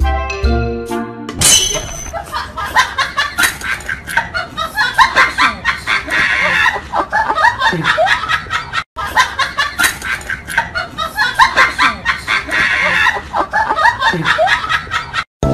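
A short tune ends about a second in, and a group of people laughing follows: a laughter sound effect that breaks off briefly about nine seconds in and starts over.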